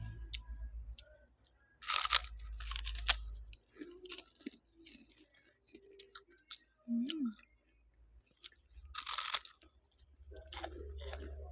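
Close-up chewing and crunching of fried rice mixed with noodles, with many small clicks and two louder crunchy bursts, about two and about nine seconds in.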